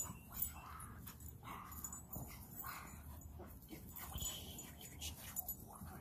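A young dog giving faint, short whines and yips several times as it jumps for a ball on a rope held above it.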